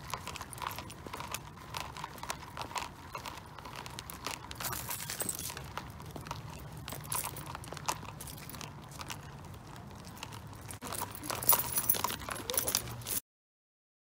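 Footsteps on pavement with rustling and clattering from things being carried, louder for a moment near the end before the sound cuts off abruptly.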